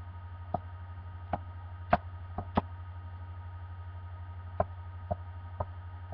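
Steady low hum with about eight light clicks and taps scattered through it, from a hammer and plastic toys being handled.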